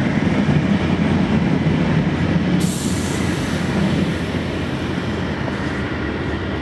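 London Underground train running through the station with a steady low rumble. About two and a half seconds in, a burst of high hiss lasts for a bit over a second.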